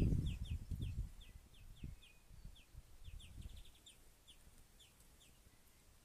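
Small songbirds chirping: short, falling high notes at irregular intervals, with a quick run of them a little past halfway. Low muffled knocks and splashing close to the trail camera's microphone fade out during the first second or so, around a greenfinch at a garden bird bath.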